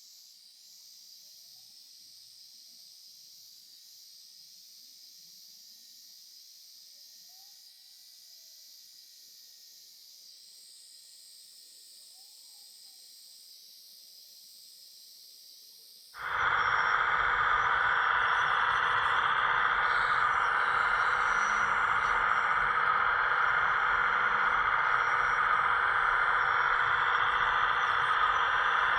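Hydraulic pump of a scale RC construction machine running with a steady whine that starts suddenly about halfway through, after a stretch of only faint hiss.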